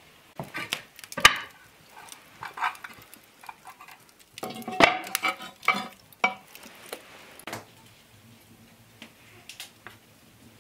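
Hot coals raked and scraped over a Dutch oven's lid with a metal tool: irregular clinks, knocks and scrapes. The busiest clatter comes in the middle, and there is one sharp knock about a second in.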